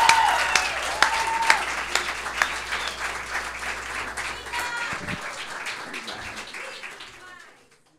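Audience applauding, with a few voices cheering about a second in and again about five seconds in. The applause fades away and stops shortly before the end.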